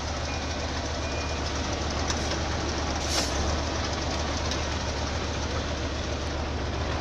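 Diesel engine of a loaded logging truck running steadily, heard up close, with a brief hiss about three seconds in.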